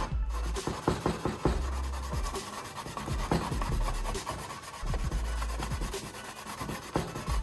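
Sandpaper rubbed by hand over a repaired plastic surface in quick, irregular strokes.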